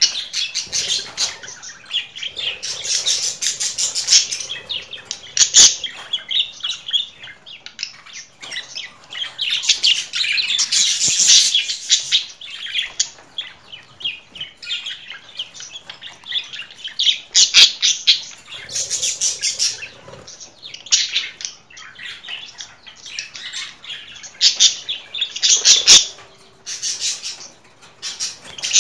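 Budgerigars chattering: a continuous run of fast chirps and clicks, high-pitched, growing louder in several spells.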